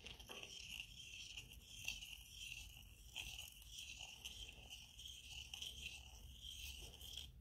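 Faint, steady scraping of a hand shaving tool's blade cutting silver from the inside rim of a Morgan silver dollar coin ring, taking off the reeded lip to enlarge the ring. It stops shortly before the end.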